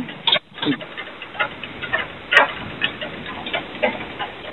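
Recorded telephone call on hold: steady line hiss with faint clicks and knocks from the other end, about two a second, one sharper click near the middle.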